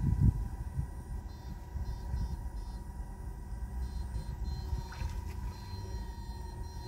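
Low, uneven rumble of wind on the microphone and wading through marsh grass, with a knock right at the start, over a thin steady high-pitched whine from the wader's backpack electrofishing unit.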